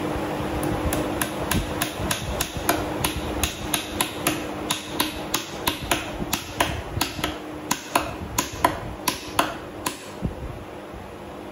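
Blacksmith's hammer striking steel on an anvil in a quick, even rhythm of about three blows a second, each with a bright metallic ring. The blows stop about ten seconds in.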